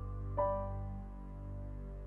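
Slow, soft background music: sustained piano or keyboard notes with a new chord struck about half a second in and left to ring.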